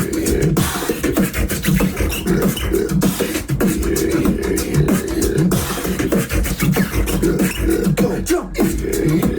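Tag-team beatboxing: a continuous mouth-made beat of deep, shifting vocal bass lines with sharp kick, snare and click sounds layered over it.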